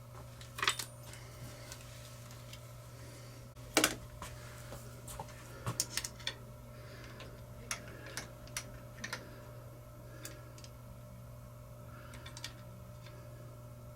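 Metal lathe running through a cut with a steady low hum, with about a dozen sharp clicks and ticks scattered through it, the loudest about four seconds in.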